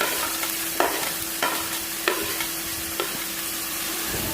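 Chopped onions sizzling in hot oil in a pan as they are stirred, with a spatula knocking against the pan four times.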